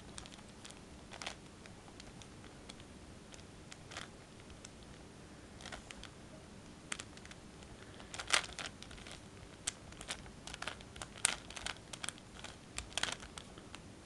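Plastic clicks and clacks of a 4x4x4 Rubik's Revenge cube's layers being turned by hand. They are scattered and faint at first and come quicker and louder from about eight seconds in.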